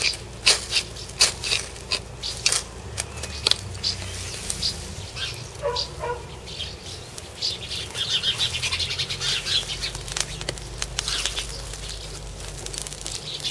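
A knife spine scraped down a ferro rod in quick strokes, about two a second, showering sparks into dry grass tinder; after a pause the grass catches and crackles as it flares up.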